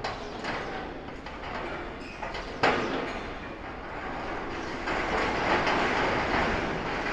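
Demolition excavator's claw pulling and tearing at a steel stairway structure: metal scraping and creaking, with a sharp crack about two and a half seconds in and louder grinding of metal from about five seconds in.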